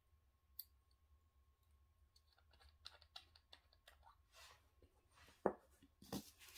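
Faint clicks and taps of a small plastic diamond-painting storage jar being handled and its screw lid opened, with a couple of louder clicks and a plastic bag crinkling near the end.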